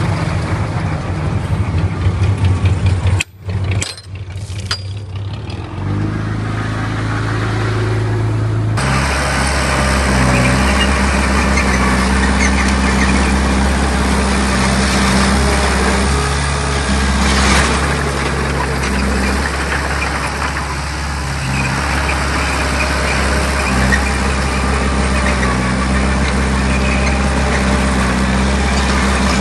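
Heavy earthmoving machinery engine running steadily, with abrupt changes in the engine note about three seconds in and again about nine seconds in.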